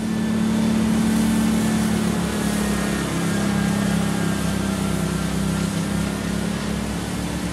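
An engine running steadily at a constant speed, with a steady hiss over it.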